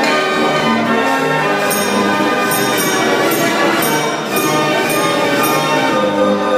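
Fair organ playing a tune: several voices of pipes over a pulsing bass, with a run of bell strikes through the middle.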